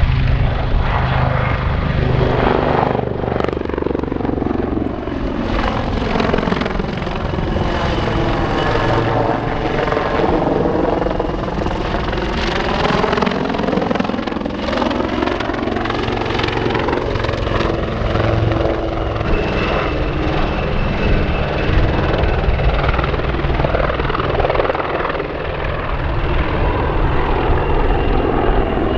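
AW159 Wildcat helicopter flying display manoeuvres, its twin turboshaft engines and rotor running loud and steady with a high turbine whine. A hollow, sweeping tone falls and rises again as it moves past.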